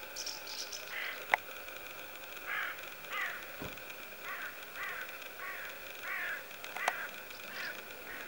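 Crow-like birds cawing, a run of about ten short calls, roughly one a second or faster. Two sharp clicks stand out, about a second in and near the end.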